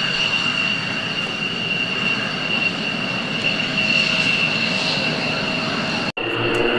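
An F-16AM fighter's jet engine running at low power as the jet moves along the runway: a steady high-pitched whine over a rushing hiss. Just before the end the sound cuts off abruptly and gives way to the steady drone of piston-engined propeller aircraft.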